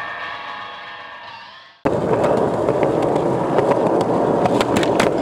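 Music fading out, then a sudden cut to a skateboard's wheels rolling on concrete: a steady gritty rumble with several sharp clicks near the end.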